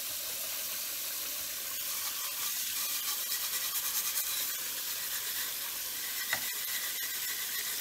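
Kitchen faucet running steadily into a stainless steel sink, with scrubbing strokes on a stove drip pan from about two seconds in, coming quickly and rhythmically for a few seconds.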